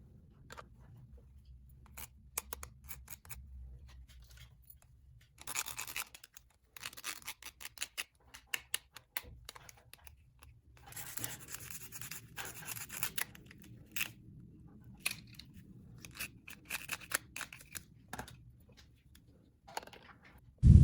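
Small plastic toy pieces being handled: scattered light clicks and taps, with a few scraping, rubbing stretches of a second or two each.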